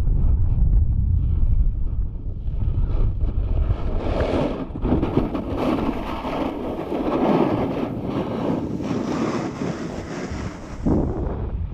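Wind buffeting the microphone of a pole-mounted camera on a moving snowboarder, with the snowboard's edge scraping and hissing over packed groomed snow, the scraping growing louder from about four seconds in.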